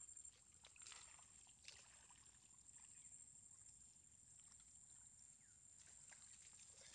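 Faint sloshing and dripping of water as a man wades through flood water and lifts a monofilament gill net, with a few small splashes, over a steady faint high-pitched whine.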